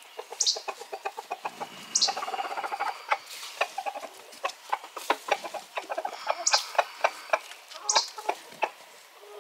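Chickens clucking in a quick run of short clucks, several a second, with a few brief high-pitched squawks.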